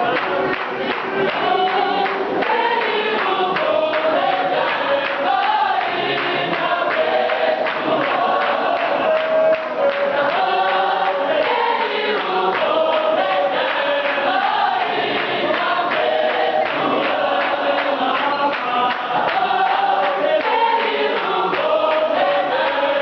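Large mixed gospel choir singing in harmony in the clap-and-tap style, its sung lines sliding between held notes over hand claps and foot taps.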